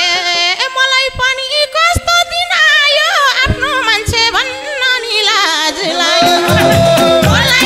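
Nepali dohori folk band playing an instrumental interlude: a wavering lead melody with vibrato over scattered madal hand-drum strikes, with the full rhythm section coming back in near the end.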